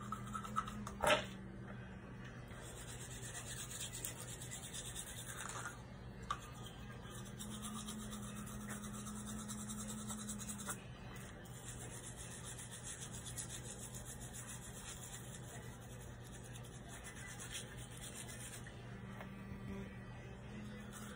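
Toothbrush bristles scrubbing teeth, a rasping scrub in stretches of several seconds with short breaks, over a steady low hum. A sharp knock about a second in.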